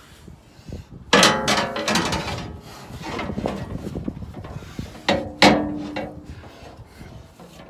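MetalCloak zinc-plated steel skid plate clanking and scraping against the adjoining skid plate as it is pushed up into position. A quick cluster of ringing metal knocks comes about a second in, and two sharp clangs about five seconds in, the second ringing on briefly.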